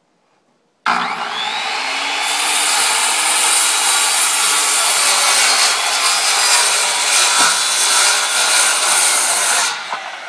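A 10-inch Bigfoot Skilsaw circular saw starts abruptly about a second in and saws through a 16-inch wooden I-joist with an OSB web for about nine seconds. Near the end the trigger is released and the blade spins down.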